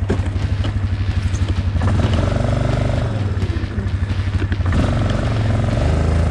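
Yamaha Kodiak ATV's single-cylinder four-stroke engine running with an even putter, then pulling harder about two seconds in, with a steady whine over it. It eases off briefly and picks up again near the end.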